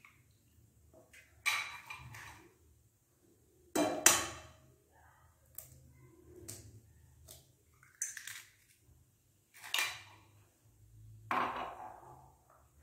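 Eggs being cracked against the rim of a glass mixing bowl: a series of sharp taps, each followed by a brief crackle of breaking shell, a few seconds apart, as two eggs are broken into the bowl.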